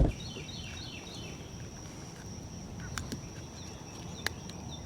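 A bird calls a quick run of short falling chirps, over a steady high insect drone and outdoor hiss. A few faint clicks sound later on.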